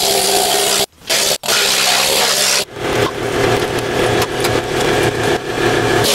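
Loud, steady running noise of compressed-air equipment, cutting out sharply twice about a second in and turning rougher from near three seconds.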